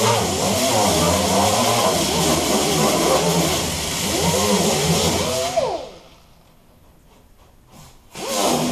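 A pneumatic hand tool (an air-line die grinder) running against the steel firewall, its pitch rising and falling as it bears on the metal over a hiss of air. It stops about six seconds in and starts again a couple of seconds later.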